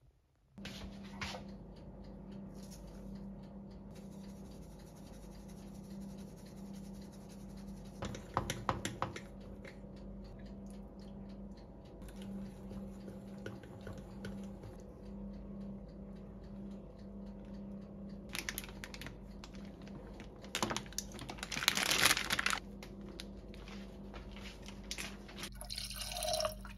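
Kitchen sounds over a steady low hum: a whisk clicking against a ceramic bowl as batter is mixed, in clusters. Near the end, water is poured from a jug into a pot.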